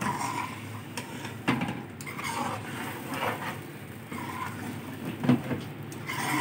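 Metal ladle stirring a chicken curry in a metal pot, scraping and knocking against the pot several times, roughly a second apart, over a steady sizzle from the curry.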